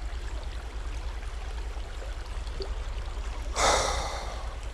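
A person's sharp, loud gasp or exhale about three and a half seconds in, heard over the steady low rush of a small stream.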